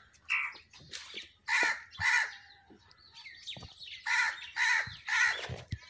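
Crows cawing: about six short, harsh caws, in groups of two and three about half a second apart.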